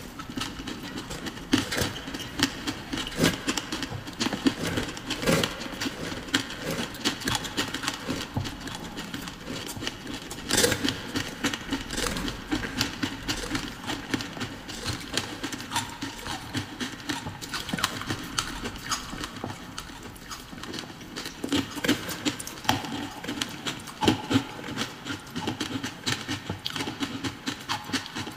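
Crushed ice being chewed and crunched in the mouth, a dense run of irregular crunches, with a metal spoon scooping ice from a steel pot.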